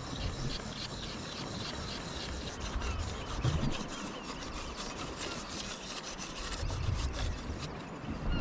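Slack pot line being wound in on a hand dive reel: steady rubbing and scraping of rope with many rapid small clicks.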